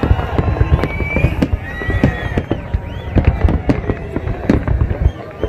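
A large fireworks display: a dense run of rapid, overlapping bangs and booms from bursting shells, with high whistles gliding up and down over them.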